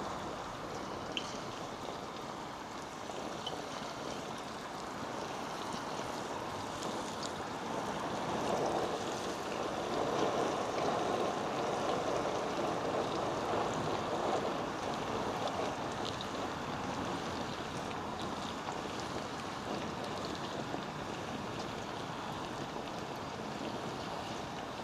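Marinated chicken pieces deep-frying in hot oil: a steady sizzle with small scattered pops, louder for a few seconds in the middle.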